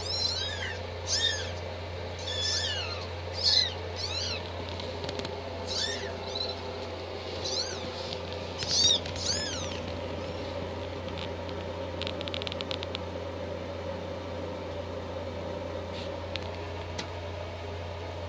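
Bengal kittens mewing: many short, high-pitched mews one after another for about the first ten seconds, then only the odd one. A steady low hum runs underneath.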